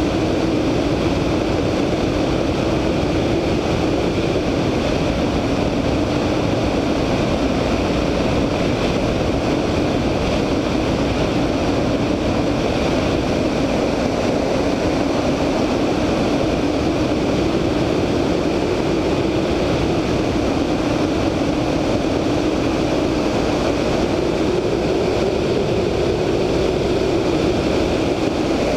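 The VL Viima II biplane's 160 hp Siemens-Halske Sh 14A seven-cylinder radial engine running steadily in flight, with a rush of airflow over the wingtip-mounted microphone.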